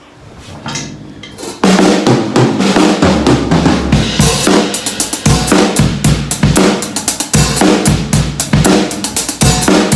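Drum kit played hard, with bass drum, snare and cymbals in a busy groove, recorded through an iPhone's built-in microphone. It starts softly and comes in loud and full about a second and a half in.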